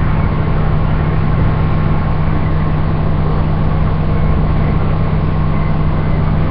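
Microwave oven running: a steady low hum under an even whirring noise, with no change in level.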